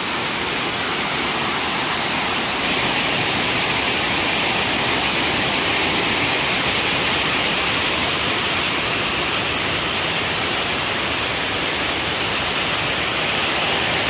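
Waterfall cascading over rocks into a pool: a steady, dense rush of falling water, getting a little louder about three seconds in.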